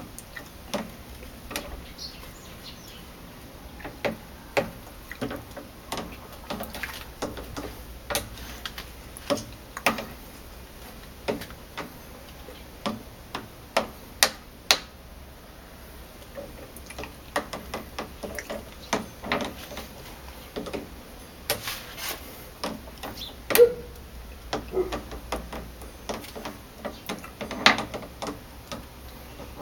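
Irregular sharp clicks and knocks, single and in small clusters, as a 3/16 oz shakey head jig with a soft-plastic worm is hopped and dragged across pebbles in a glass tank.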